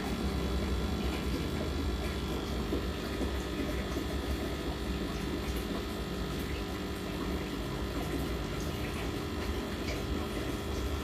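Aquarium filter pump running: a steady hum with the noise of moving water.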